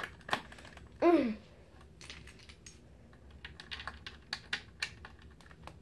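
Plastic Lego bricks being handled, giving a run of light, irregular clicks.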